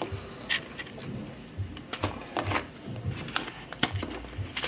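Irregular light clicks and taps as homemade dishwasher tablets are pushed out of a mould tray and knock against it and each other.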